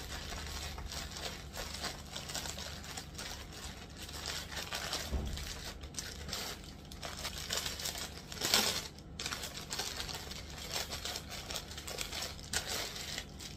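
Plastic packaging of a clothing parcel crinkling and tearing as it is opened by hand: a thin courier mailer and a clear zip-lock bag. Irregular crackles throughout, with the loudest burst about eight and a half seconds in.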